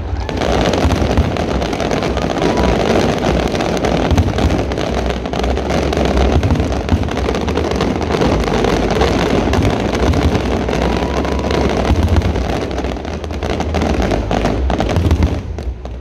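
Fireworks display: a dense, continuous barrage of crackling shells over a steady low rumble, easing off just before the end.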